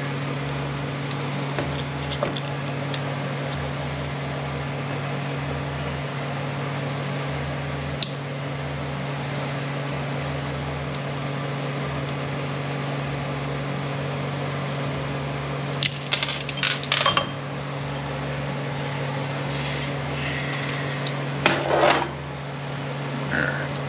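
Steel gears and synchronizer parts of a T5 manual transmission clinking and clattering as they are handled on the mainshaft: a few light clicks early, then two short bursts of metal-on-metal clatter in the second half, over a steady background hum.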